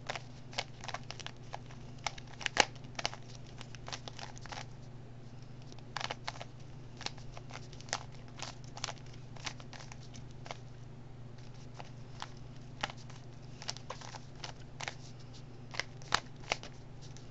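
Plastic Rubik's Cube layers being turned by hand: irregular clicks and clacks, singly and in quick runs, over a low steady hum.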